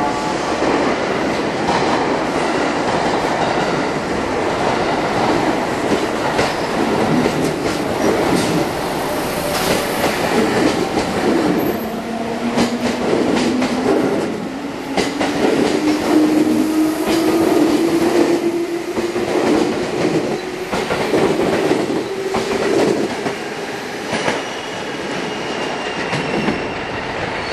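JR West 221 series electric multiple unit pulling away and gathering speed. Its wheels clatter over rail joints and points, and a whine from its traction motors rises steadily in pitch from about halfway through as it accelerates.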